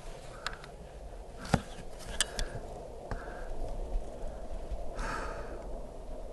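A single shot from an Air Venturi Avenger .22 PCP air rifle, a sharp crack about one and a half seconds in, followed by a few lighter clicks, with wind rumbling on the microphone. There is a short breathy rush of noise near the five-second mark.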